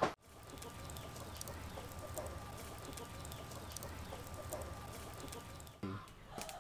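Chickens clucking faintly against a steady low background, with a few faint clicks.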